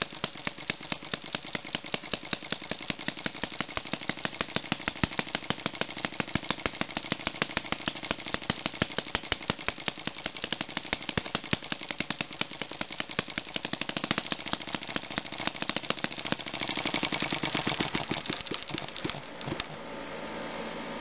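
Single-cylinder Thompson model engine, built from a casting kit, running with a rapid, even train of sharp exhaust pops that quicken over the first few seconds, then fade and stop near the end.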